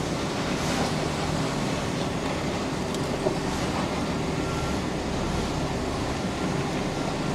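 Iveco lorry's diesel engine running steadily as the loaded truck manoeuvres slowly out of a tight yard, heard from inside the cab.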